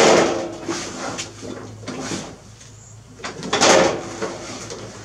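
The hood of a Craftsman LT1000 riding mower is dropped shut with a sharp knock. About three and a half seconds in, the front wheels are steered hard and the oversized tyre scrapes against the hood.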